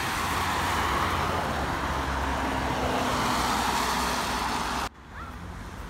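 Street traffic noise: a steady rush of passing road vehicles, with tyre and engine noise. It cuts off suddenly about five seconds in.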